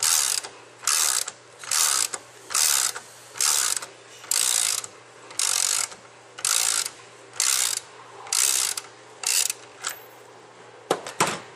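Socket ratchet with a 5/8 in socket working a spray gun's fluid inlet fitting loose: about eleven short bursts of pawl clicking, roughly one a second, then a couple of sharp clicks near the end.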